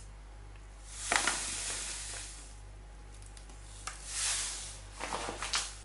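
Granulated sugar pouring, twice: a hissing pour about a second in that trails off, and a shorter one about four seconds in, as sugar comes out of the paper bag into a glass cup and is tipped into a stainless steel pot. A few light clicks of the glass follow near the end.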